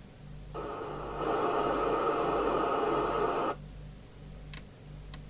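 Midland 77-805 FM CB radio receiving through its extension speaker: hiss with a weak transmission in it opens up suddenly about half a second in, grows louder a moment later and cuts off abruptly after about three seconds, the squelch opening on an incoming signal and closing again.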